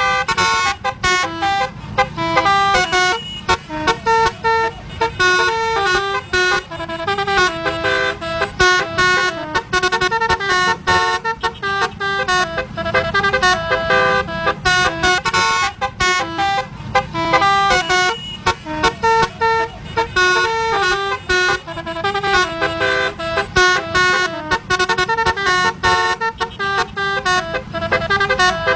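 Bus telolet horn, a multi-trumpet musical air horn, playing a tune of short, quickly changing notes over and over without pause. A low road and engine rumble runs underneath.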